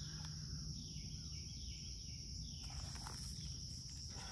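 Steady high-pitched drone of an insect chorus, with a few faint bird calls over it.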